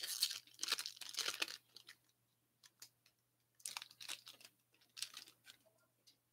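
Foil wrapper of a hockey card pack torn open and crinkled by hand: a burst of crinkly tearing in the first second and a half, then two shorter crinkles about four and five seconds in.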